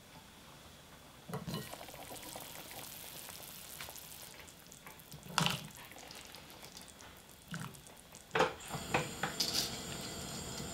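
Water pouring into a pot of beef broth on a gas stove for about three seconds, then a series of sharp clinks and knocks at the pot, the loudest about eight seconds in, as sliced rice cakes for tteokguk are dropped in.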